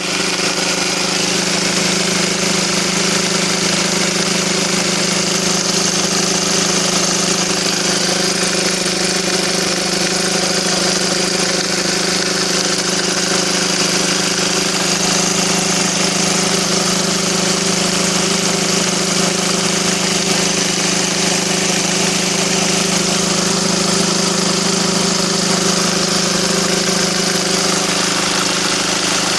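SsangYong Kyron engine idling steadily with a knock in it. The owner traced the knock to a damper that had run empty of oil.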